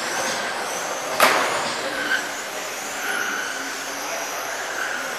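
Electric USGT RC race cars with 21.5-turn brushless motors running laps together: several motor whines swell and fade as cars pass, over a steady bed of motor and tyre noise. A sharp knock about a second in is the loudest sound, with a smaller one about a second later.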